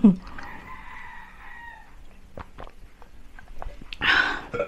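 A rooster crowing faintly in the background: one drawn-out call lasting about a second and a half. Near the end, a short breathy hiss.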